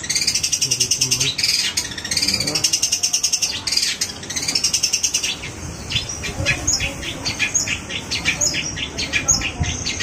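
Long-tailed shrike (cendet) singing continuously: fast, dense chattering phrases in the first half, then a run of short, separate sharp notes, a few a second.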